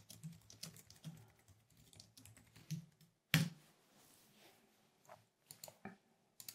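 Typing on a computer keyboard: a run of quick key presses, then one much louder single key strike about three and a half seconds in, followed by a few scattered clicks near the end.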